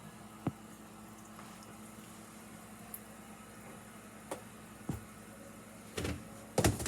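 Kitchen room tone: a steady low hum with a few light taps and knocks from handling things at the counter, a louder clatter near the end.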